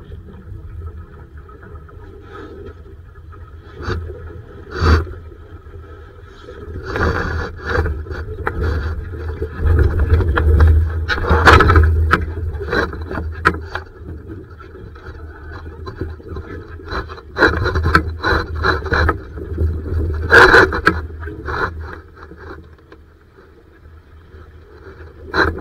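Irregular scraping and knocking over a steady low rumble, busiest through the middle stretch and again in a cluster about twenty seconds in.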